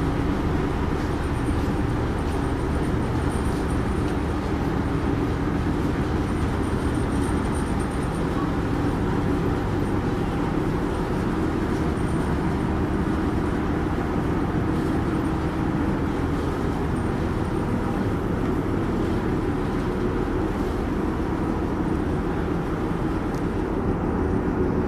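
Harbour ferry's engine running with a steady low drone, heard on board.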